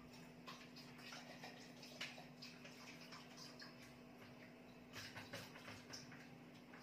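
Near silence: faint kitchen room tone with a steady low hum and scattered small clicks and rustles.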